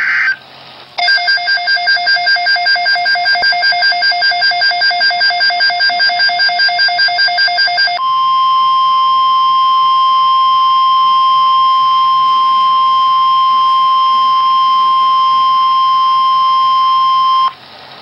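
Emergency Alert System broadcast for a tornado watch on NOAA Weather Radio: the tail of a screeching digital header burst, then about seven seconds of rapid electronic alarm beeping at about four beeps a second, then the steady single-pitch weather radio alert tone near 1 kHz, held about nine seconds before it cuts off abruptly.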